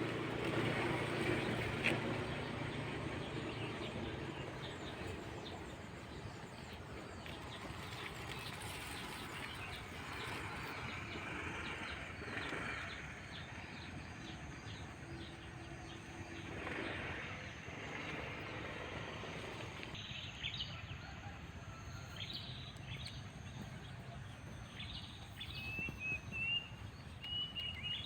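Small birds chirping in short calls, more frequent in the last several seconds with a brief warbling phrase near the end, over a steady outdoor background; a motor vehicle fades away in the first few seconds.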